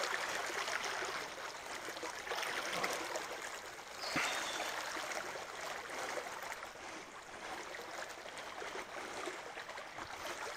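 Shallow, stony creek water running steadily, a continuous even rush.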